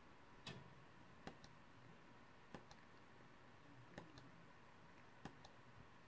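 Faint, sharp clicks about every second and a half in near silence, most followed by a softer second click, like a button pressed and released.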